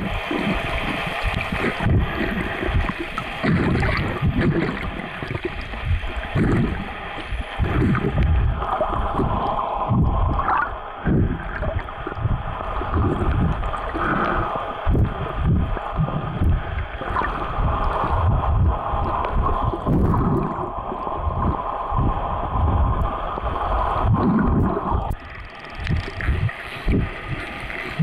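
Underwater water noise: irregular low surges and gurgling of water moving against the camera as the swimmer moves, over a steady droning hum that eases off near the end.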